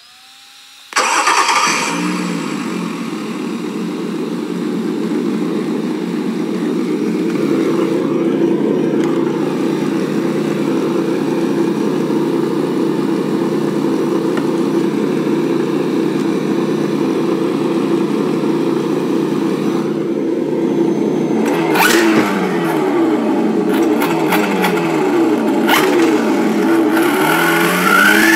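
GT Power engine sound simulator playing through its small speaker on an RC truck: a simulated car engine starts about a second in and idles steadily. From about 21 s it revs up and down repeatedly with the throttle, with a few clicks, and climbs again near the end.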